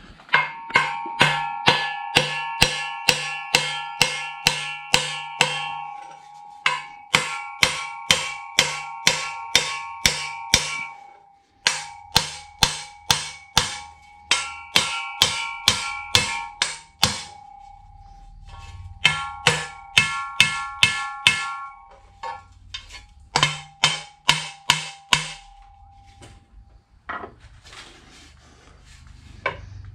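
Hammer blows on a driveshaft end yoke, driving it down into the shortened steel driveshaft tube until it bottoms out; each blow rings with a bell-like metallic tone. The blows come about three a second in five runs with short pauses between them.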